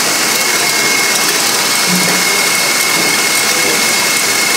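KitchenAid stand mixer whisking egg whites and sugar into meringue: a steady whir with a thin, constant high whine.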